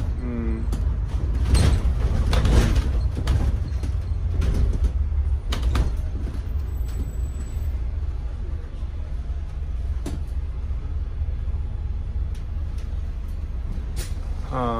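A double-decker bus in motion, heard from the upper deck: a steady low engine and road rumble, with scattered sharp rattles and knocks.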